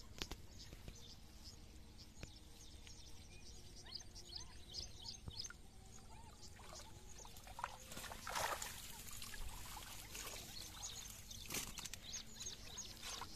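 Cast net being drawn out of shallow pond water and laid on a grassy bank: water splashing and pouring from the mesh, loudest about eight seconds in, with a short sharp click a few seconds later. Small birds chirp throughout.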